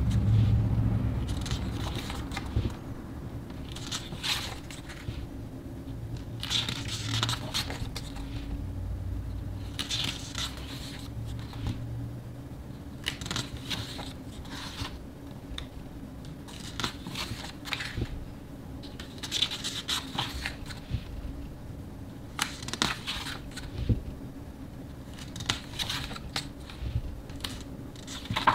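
Paper pages of a hardcover photobook being turned by hand, a short papery swish and rustle every few seconds, over a low steady hum.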